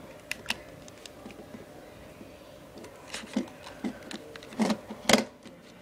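Hands prying at a hard plastic Energizer iPod touch battery case: scattered sharp clicks and knocks, a couple just after the start, then a quieter stretch and a cluster of them in the second half.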